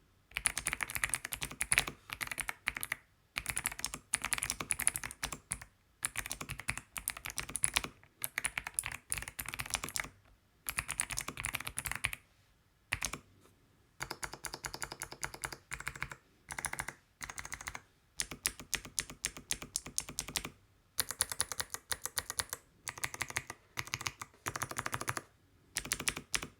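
Fast typing on a mechanical keyboard fitted with Akko Creamy Cyan clicky switches: rapid runs of sharp key clicks in bursts of a second or two, broken by short pauses.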